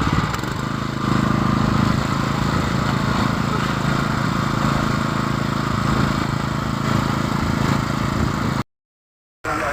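Engine of a concrete pump (pumpcrete) running steadily during a pour. The sound cuts out completely for under a second near the end.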